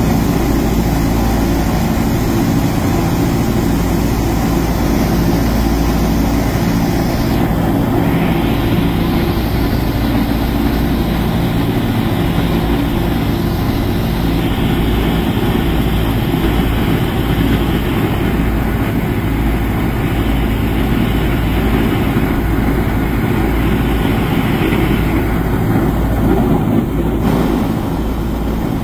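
Ford Tri-Motor's three radial engines and propellers droning steadily in cruise, heard from inside the passenger cabin.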